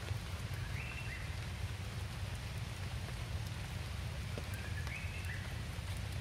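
Steady rain falling, with a low rumble under it. Two short high chirping calls come through, about a second in and again near five seconds.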